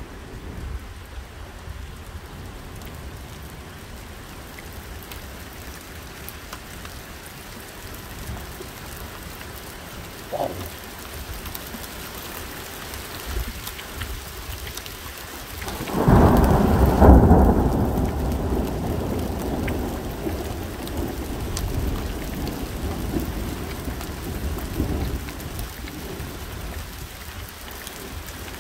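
Thunderstorm: rain falls steadily, and about sixteen seconds in a loud, sudden thunderclap breaks and rumbles on, slowly dying away over the next ten seconds or so.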